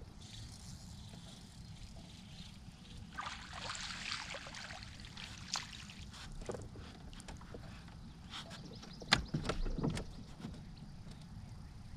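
A small hooked fish splashing and thrashing at the surface beside the boat as it is reeled in, with a sharp knock about nine seconds in, the loudest sound, and a few lighter knocks as it is lifted from the water.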